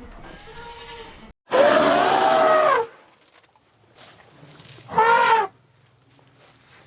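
A farm animal calling twice: a loud call about a second long that rises and then falls in pitch, and a shorter call about five seconds in that falls in pitch.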